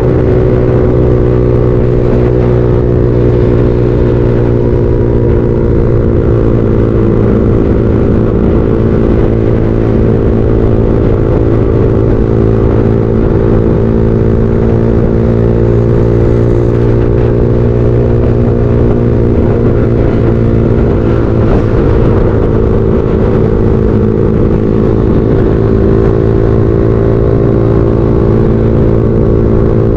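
Motorcycle engine running under way at cruising speed, its steady note sagging slightly and picking up again as the throttle changes.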